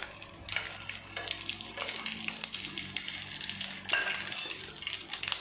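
Halved boiled eggs frying in butter in a non-stick pan, a steady sizzle, with clinks and scrapes of a knife and spoon on the pan as the eggs are turned over.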